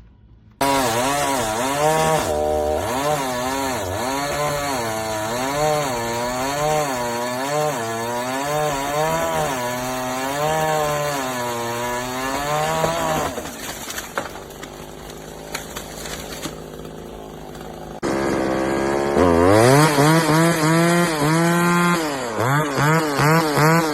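Gas chainsaw cutting wood, its engine pitch rising and falling again and again as the chain bites and frees in the cut. It drops away about halfway through, then after a cut revs up again and keeps cutting with repeated dips in pitch.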